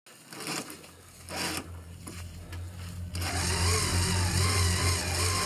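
Electric winch on an Argo ATV running with its cable under tension: it comes in about three seconds in as a steady motor sound with a wavering whine, over the low hum of the vehicle's engine.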